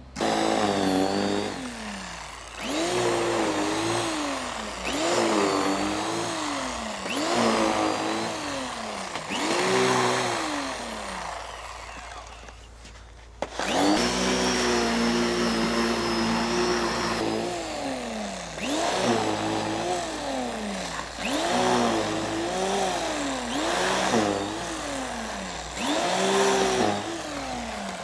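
Texas ST1500 electric snow thrower running while clearing snow, its motor whine rising and falling in pitch every second or two. It drops away for a moment about halfway through, then starts again abruptly.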